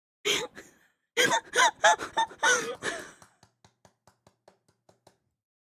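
A woman laughing hard in a run of short bursts, trailing off from about three seconds in into faint, breathless wheezing gasps.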